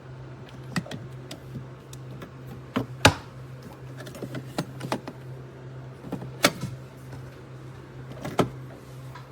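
Handling sounds: a series of sharp clicks and knocks, the loudest about three seconds in, over a steady low hum.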